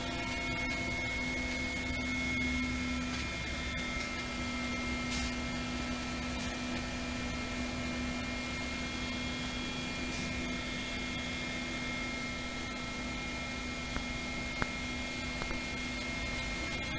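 Mil Mi-171E helicopter's twin turboshaft engines and rotor running, a steady drone with a few held whining tones.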